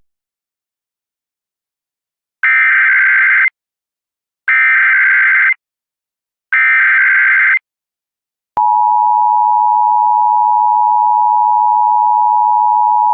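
Emergency Alert System signal: three one-second bursts of digital header data about a second apart, then the steady EAS attention tone begins about eight and a half seconds in and holds.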